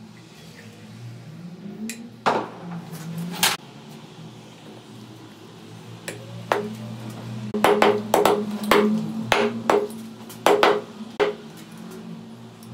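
Metal transmission parts clinking and knocking as the internals are seated by hand in the transmission case: a run of sharp metallic clinks, each with a short ring. A couple come about two to three seconds in and a dense cluster in the second half, all over a steady low hum.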